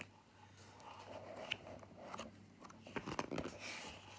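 Pages of a board-game rulebook being handled and turned: faint paper rustling with scattered sharp clicks, a cluster of them about three seconds in.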